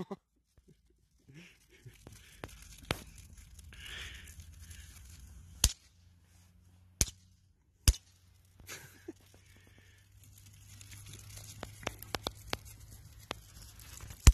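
Comet bang snaps (Knallerbsen) cracking on asphalt as they are thrown down one after another. There are several sharp snaps a second or more apart, the loudest around the middle, then a quick run of smaller snaps near the end.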